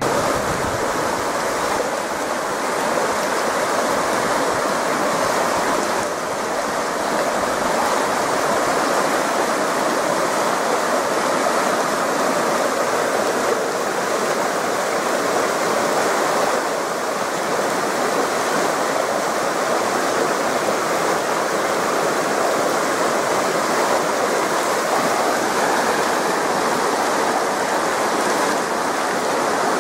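Fast-flowing mountain river rushing over rocks and through rapids: a steady, unbroken rush of water.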